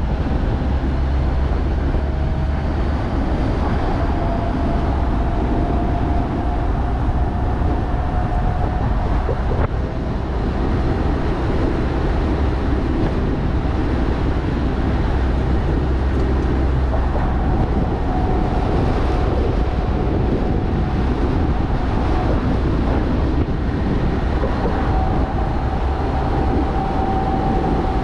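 Jeep Rubicon driving along a road: a steady rumble of road and wind noise with a faint whine that slowly rises and falls in pitch.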